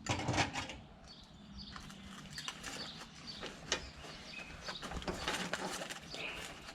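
A tool roll bag full of hand tools being handled and turned over: fabric rustling with irregular small clicks and clinks of the tools and fittings.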